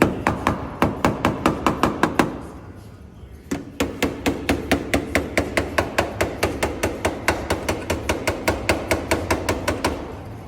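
Rapid, even hammer blows, about five a second, with a pause of about a second after two seconds; the hammering stops shortly before the end.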